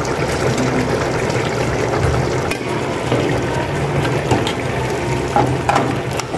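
A pot of carrot and orange-juice syrup bubbling at a boil as parboiled rice is tipped in, with a spoon knocking and scraping against the metal pot a few times in the second half.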